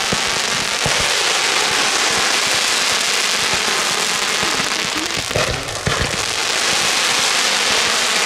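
Fireworks going off: a dense, steady crackle of crackling comets and stars, with short low thumps of launches scattered through it and a cluster of them about five seconds in.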